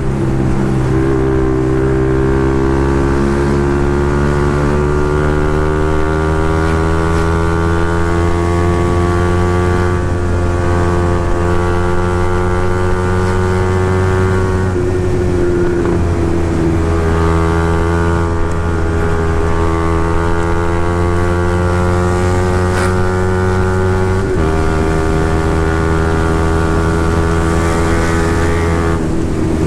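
Honda CB150R's single-cylinder engine running under way, its note slowly climbing and easing, with a few abrupt steps in pitch where gears change.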